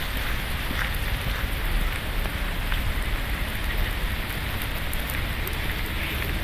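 Steady outdoor noise on a handheld phone microphone: an even hiss over a low rumble, with faint scattered ticks.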